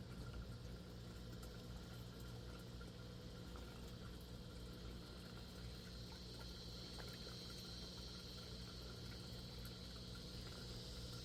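Aquaponics system running: a faint, steady low pump hum with water trickling, and a high hiss that grows stronger about halfway through.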